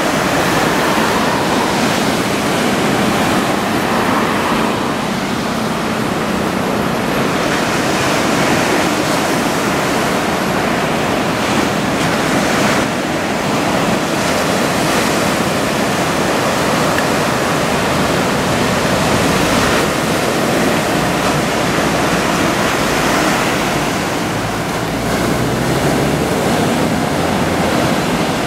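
Big typhoon-swell surf breaking and washing in, a steady wash of ocean noise.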